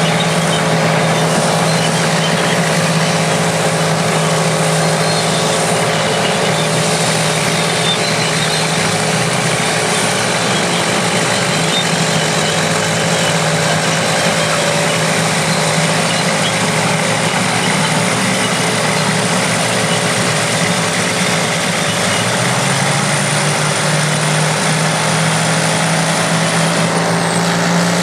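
Engines of vintage crawler bulldozers and scrapers running together at working speed, a steady heavy mechanical drone. About two-thirds of the way through, one engine's note rises in pitch as it picks up revs.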